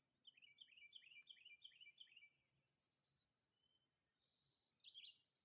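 Small birds chirping and singing faintly. A rapid run of short downward-sliding notes, about five a second for two seconds, is followed by scattered high chirps and a louder burst of calls near the end.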